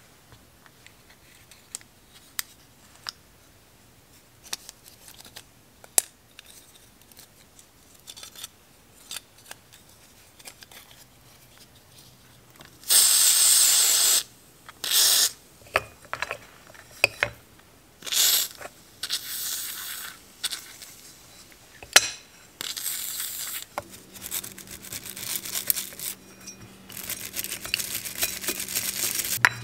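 Small clicks and ticks of a bicycle gear shifter's parts being handled and taken apart. About 13 s in, several short hissing bursts of aerosol spray cleaner through a straw nozzle onto the shifter. From about 24 s, a stiff brush scrubbing the wet shifter with a steady rasping.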